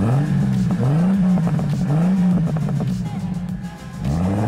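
Jeep Cherokee XJ's AMC 4.0 straight-six revved in three short blips about a second apart, each rising and falling in pitch, then revved up again and held near the end.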